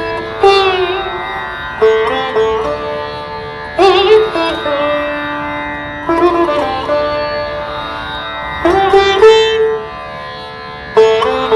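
Background music: a plucked string instrument in an Indian classical style over a steady drone, with a new phrase of sliding, bending notes every two seconds or so.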